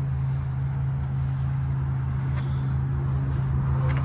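Ford 6.8-litre gas V10 of a Class C motorhome idling, a steady low drone.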